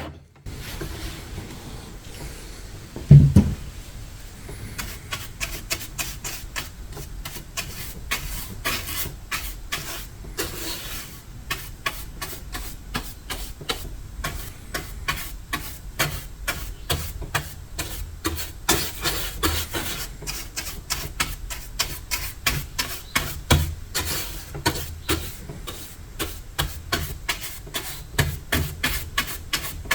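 Hand-held tool worked in quick back-and-forth strokes over old paint and finish, about two to three rasping strokes a second, as in hand sanding or scraping. A single loud knock comes about three seconds in, before the steady stroking begins.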